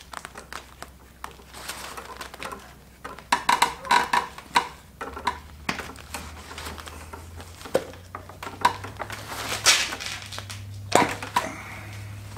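Paper towel rustling and crinkling as it is rubbed over a greasy power steering rack, with scattered clicks and knocks from handling the rack. A low steady hum sets in about halfway through.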